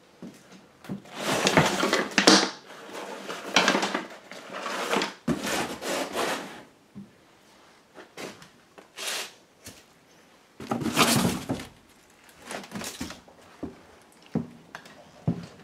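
Handling and rummaging noise in a cluttered room: several bursts of rustling, with scattered knocks and thuds from wood.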